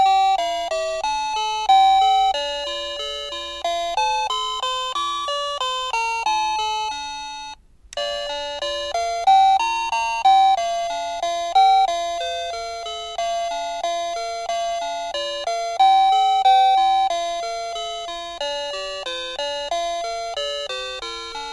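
Ang USA wireless doorbell's plug-in receiver playing electronic chime melodies, a run of short pitched tones that each fade away. One tune stops a little past seven seconds in, and after a short break another tune starts.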